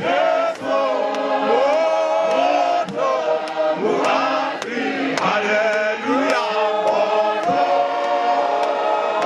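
A congregation of men's and women's voices singing a hymn together in harmony, the notes long and sliding. Sharp beats run through the singing every half second or so.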